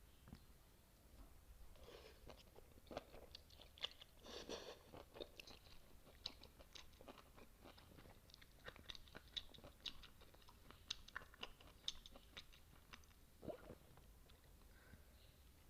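Close-miked eating of noodles and kimchi: wet chewing and biting with many small sharp mouth clicks and crunches, thickest about four seconds in, tailing off near the end.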